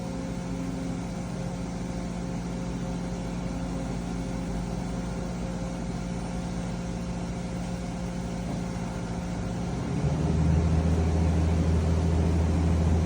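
Mazak VCS-410A vertical machining center cutting Kovar, a nickel alloy, in the middle of a program: a steady machine hum with a few held tones. About ten seconds in, a louder, deeper hum sets in.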